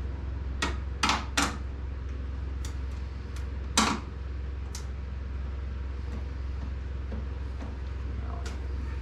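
Scattered metallic clinks and knocks of a bolt, bracket and tools being handled against an aluminum boat while a mounting bracket is bolted on. There are a few sharp knocks in the first second and a half, the loudest about four seconds in, over a steady low hum.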